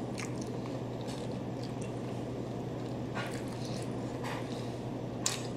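Wet mouth sounds of a person eating spaghetti: chewing, with a few short soft smacks spread out over steady background hiss.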